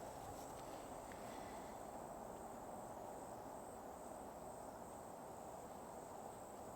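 Faint, steady high-pitched insect trilling, an unbroken drone of woodland insects.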